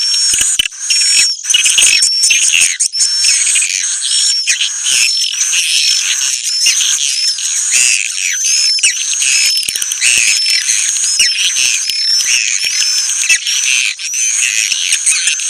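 Dense, continuous chorus of songbird chirps from a bird-luring call recording: many quick high whistled notes with rapid pitch flicks, several a second, layered over buzzy trills, without a break.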